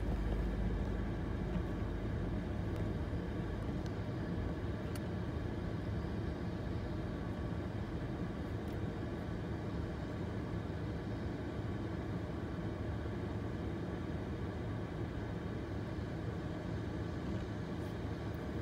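Freight train of autorack cars rolling past, a steady rumble of wheels on rail. A heavier low drone from the locomotives fades out in the first second or so.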